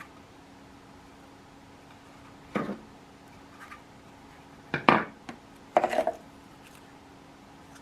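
Hard objects being handled and set down: a few short knocks and clatters, with three louder ones about a second and a half apart, the last a quick rattling run.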